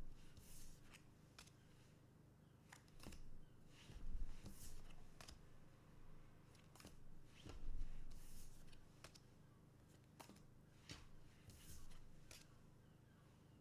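Trading cards being handled and slid past one another, with irregular soft clicks and brief swishes, and a couple of low thumps about four and seven and a half seconds in.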